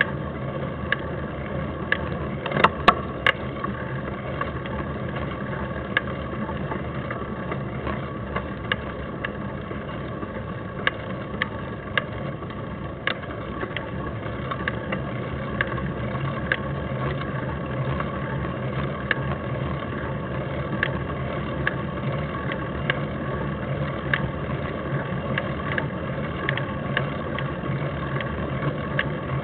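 Steady hum and rush of bicycle riding noise picked up by a camera on a bike climbing a paved road. Sharp clicks and rattles come about once a second, with a cluster of louder clicks about three seconds in.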